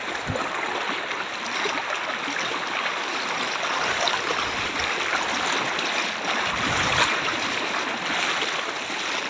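Floodwater flowing steadily: a continuous rushing hiss of moving water.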